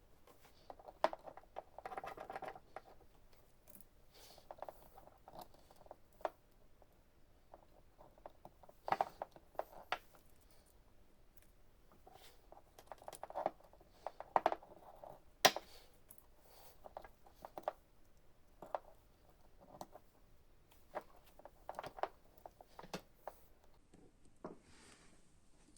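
Irregular clicks, taps and scrapes of an ignition coil and its connectors being handled and fitted onto a spark tester, with a few sharper knocks.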